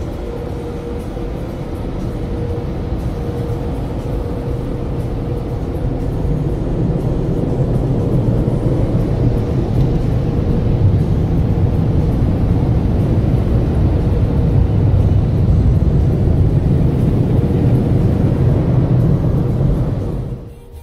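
Automatic car wash working over the car, heard from inside the cabin: water spray and rotating wash brushes make a loud, steady rushing noise, heavy in the low end, that builds over the first several seconds and cuts off suddenly near the end.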